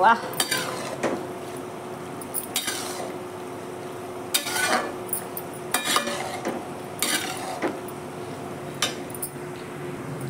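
A perforated steel ladle stirring macaroni in a steel kadhai: irregular metal scrapes and clinks against the pan, about one every second or so.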